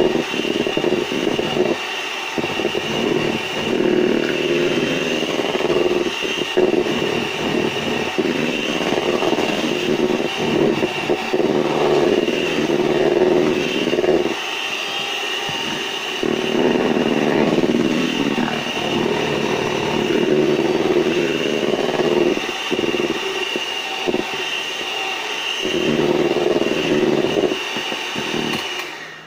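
Electric hand mixer running, its beaters whipping egg whites and sugar into meringue that is reaching stiff peaks: a steady motor whine whose level wavers as the beaters move through the bowl. It switches off at the very end.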